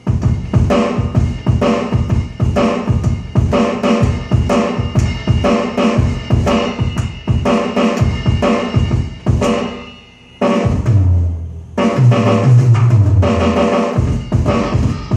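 Roland electronic drum kit being played: a fast, busy groove of kick and snare hits. It drops away briefly about ten seconds in, then starts again.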